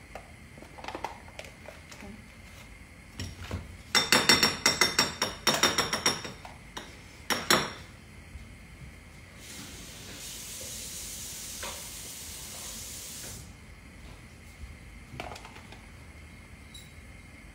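Kitchen clatter: a rapid run of loud knocks and rattles lasting about two and a half seconds, one more knock, then a steady hiss for about four seconds, with scattered light clicks of handling throughout.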